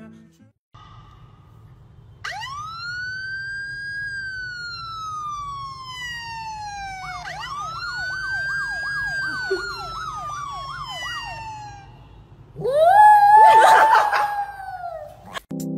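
A siren wails, sliding slowly up and down in pitch, with a fast warbling yelp layered over it for a few seconds midway. Near the end a small white fluffy dog howls loudly along with the siren.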